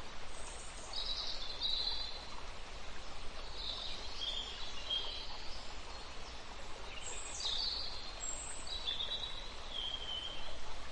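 European robin singing: several short phrases of high, thin, warbling notes, each a second or two long with pauses between, over a steady background hiss.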